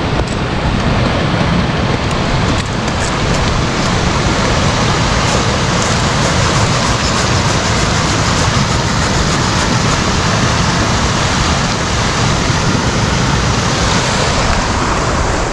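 Steady rushing of a small snowmelt stream running over rocks.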